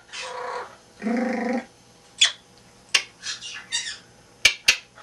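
Pet parrot vocalising: two drawn-out calls in the first second and a half, the second low and buzzy, then a run of short sharp squawks and clicks.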